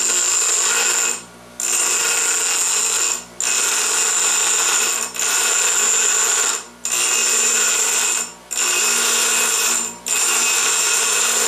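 Bench grinder wheel grinding the end of a 1/2-inch metal pipe nipple into a bevelled cutting edge for a hole punch, a loud, high-pitched grinding. The grinding comes in passes broken by short pauses about every second and a half, as the pipe is lifted and turned against the wheel, while the grinder's motor keeps running.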